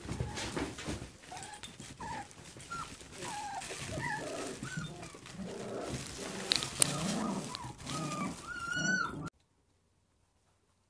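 Puppies whimpering and squeaking in short high glides while scuffling at play, with one sharp click about two thirds of the way through. The sound cuts off suddenly near the end.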